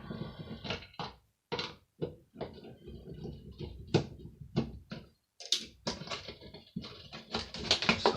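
Irregular clicks and knocks of hand tools, screws and plastic and metal parts being handled as a hand air dryer is taken apart, growing busier in the second half.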